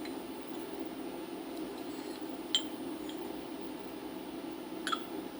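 Two light metallic clicks, about two and a half seconds in and again near the end, from steel machinist's parallels being set in place on a milling machine, over a steady low hum.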